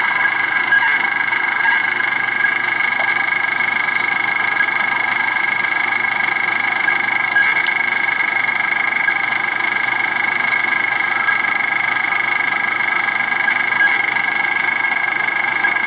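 A vehicle's engine idling steadily while the vehicle stands still, heard from inside it, with a constant high-pitched whine and hiss over the engine sound.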